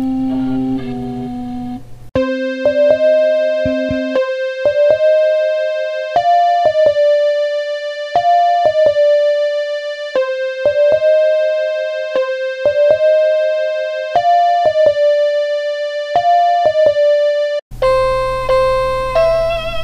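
Homemade synthesizer music: after a short synth passage ends about two seconds in, a simple electric-piano melody repeats the same short phrase about every four seconds; near the end a new piece starts with wavering, vibrato-like tones over a low hum.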